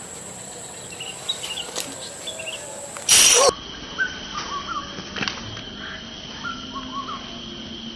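Outdoor ambience of short small-bird chirps over a steady high insect buzz, with a brief loud rush of noise about three seconds in.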